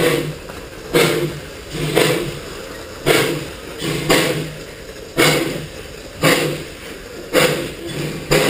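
Narrow gauge NA class steam tank locomotive working slowly under load, with heavy exhaust chuffs from the chimney about once a second that space out slightly toward the end.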